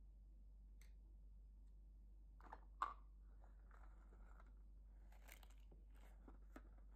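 Quiet handling noises from hands taking up and squeezing a rubber balloon over a glass bowl of slime: one sharp tap about three seconds in, then soft rubbing and a few small clicks. A low steady hum runs underneath.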